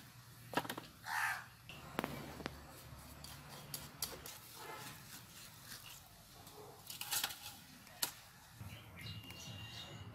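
A few sharp knocks and crunches as a large aar catfish is cut through on an upright bonti blade, with a short bird call about a second in.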